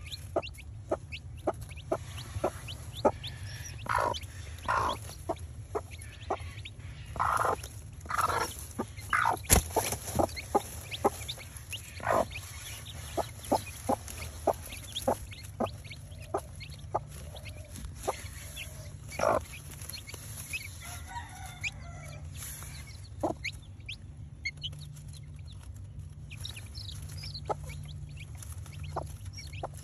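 Brooding gamefowl hen clucking over her newly hatched chicks: short, irregular clucks, with the louder and longer ones in the first third.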